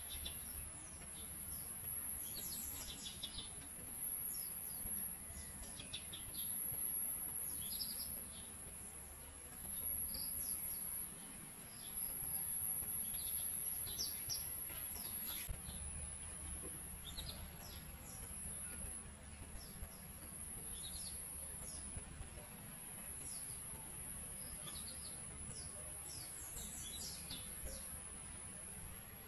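Outdoor ambience of many birds chirping in short repeated calls over a steady high-pitched insect drone.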